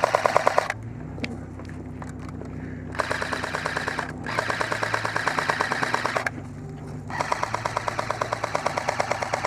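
Airsoft guns firing on full-auto in long bursts of rapid, evenly spaced snapping clicks: a short burst at the start, a longer one with a brief break a few seconds in, and another toward the end. A steady low hum from the truck's running engine sits underneath.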